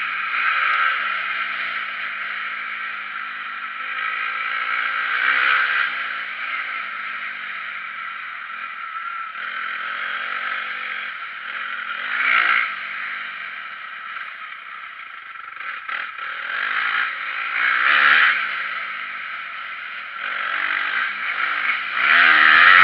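Motocross dirt bike engine running hard on track, revving up into louder bursts of throttle several times and easing off between them, with rattling and clatter from the bike.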